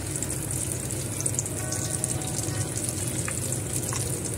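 Chickpea kababs deep-frying in hot oil in a kadai: a steady crackling sizzle. A few light scrapes and taps of a perforated metal frying spoon come through as the kababs are turned.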